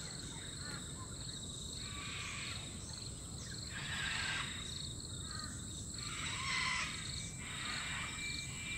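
Wild birds giving about four harsh, rasping calls, spread a couple of seconds apart, over a steady high insect drone and a regular chirping about twice a second.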